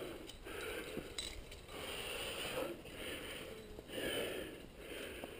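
Climber's heavy breathing close to a helmet-mounted microphone, in and out about once a second as he works up the rock face. A light click is heard about a second in.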